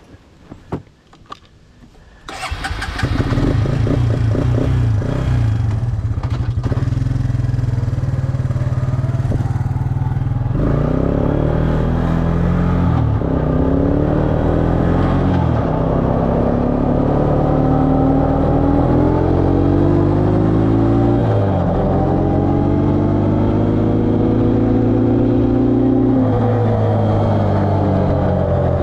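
Quad (ATV) engine started with a few clicks and catching about two seconds in, then running and being taken up through the gears: the engine note climbs in each gear and drops back at each shift, several times.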